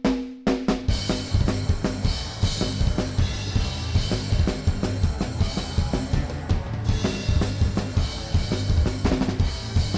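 Punk rock band playing an instrumental passage, with the drum kit most prominent over a strong bass line. A few separate hits open it before the full band comes in just under a second in.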